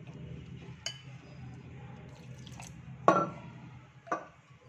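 Metal spoon stirring gram flour in a glass mixing bowl: soft scraping, a light click about a second in, then a sharp ringing clink of metal on glass about three seconds in and a weaker one just after.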